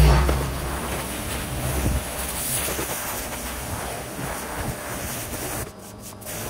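Pressure washer spraying: a steady rushing hiss, with a low rumble over the first two seconds. The spray drops away briefly about six seconds in.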